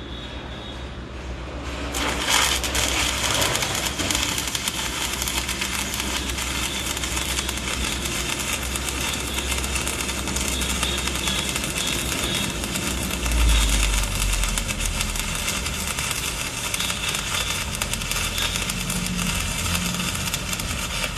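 A 6010 stick-welding arc is struck about two seconds in and then crackles steadily as a bead is run. A steady low hum lies underneath.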